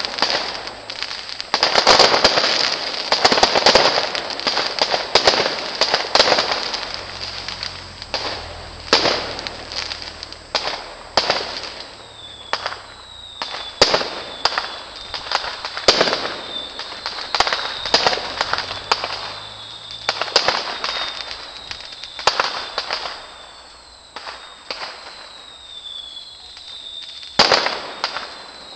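Aerial fireworks display: many sharp bangs of bursting shells, densest in the first several seconds. From about the middle on, short falling whistles sound between the bangs.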